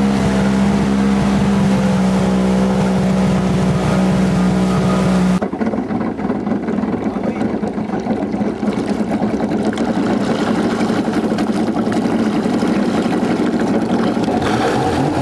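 Towing watercraft's engine idling with a steady hum, which changes abruptly about five seconds in to a rougher, noisier running. Near the end the engine revs, its pitch rising, as it starts pulling the wakeboarder out of the water.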